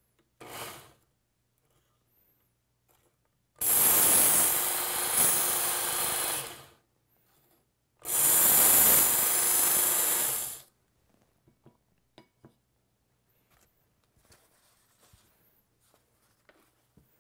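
Work Sharp Ken Onion Edition belt sharpener at slow belt speed grinding a steel knife edge: two passes of about three seconds each, a loud hissing grind as the blade is dragged across the abrasive belt to take off a damaged edge. A faint steady motor hum runs between the passes, followed by small clicks and taps.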